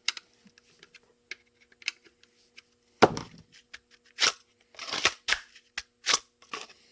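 Hard kydex clicking and scraping as a pistol is worked in and out of a tight-fitting kydex holster, in a series of sharp clicks of uneven loudness, the loudest about three seconds in.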